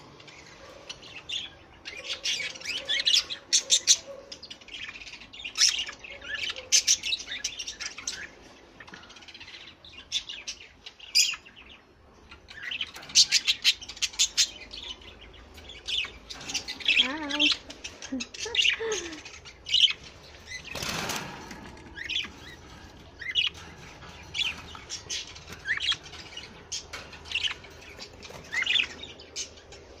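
A flock of caged budgerigars chirping and chattering in quick clusters of short, high calls, with a brief rush of wings flapping about two-thirds of the way through.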